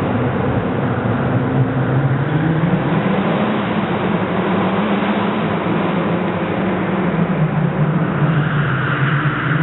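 Mitsubishi Lancer Evolution's turbocharged four-cylinder engine driven hard around a tight cone course, the engine note rising and falling several times as the car accelerates and slows between cones, inside a large hall.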